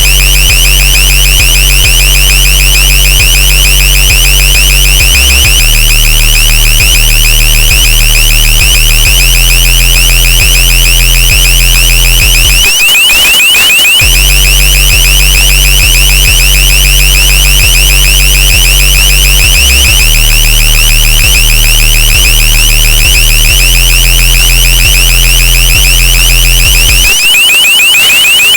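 LRAD (Long Range Acoustic Device) deterrent tone: a very loud, shrill warbling alarm tone that wavers rapidly in pitch, heavily bass boosted with a loud low bass layer underneath. The bass drops out for about a second midway and again near the end, leaving the warble alone.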